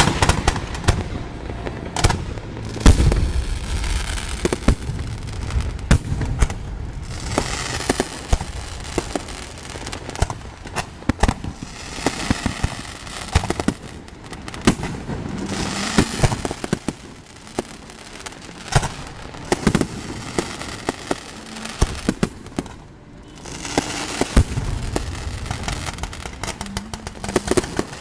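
Aerial fireworks going off: a rapid series of bangs and booms with crackling, coming in waves, the loudest a deep boom about three seconds in.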